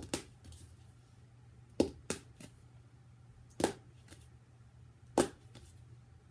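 Plastic highlighter marker clacking down onto a stack of books as it is flipped and falls over: six sharp knocks, with a double clack at the start, another pair about two seconds in, then single knocks about three and a half and five seconds in.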